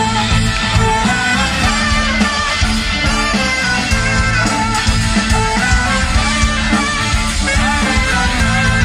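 Rock band playing live over a large PA: drums, electric guitars, bass and keyboards, loud and continuous, with melodic lines running over the top.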